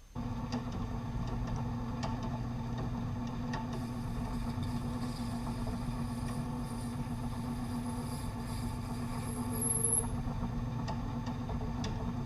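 Smithy 3-in-1 lathe-mill combination machine running steadily, its motor humming, with a few light ticks over it.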